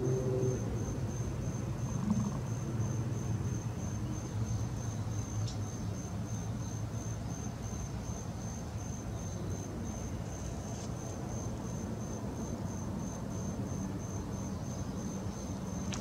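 A cricket-like insect chirping steadily in high-pitched, evenly spaced pulses, a few a second, over a low steady rumble.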